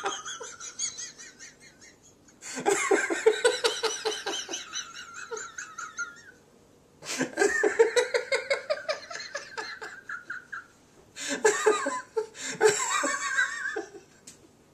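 A man laughing hard in three long fits of quick, repeated ha-ha pulses, with short quiet breaks between them.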